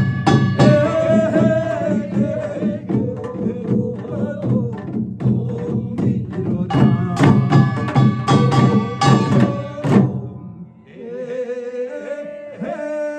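Korean pungmul percussion (janggu hourglass drums, buk barrel drums and a kkwaenggwari small gong) playing loud and fast as an interlude in a binari blessing chant. About ten seconds in, the drumming stops and a voice carries on singing over a quieter accompaniment.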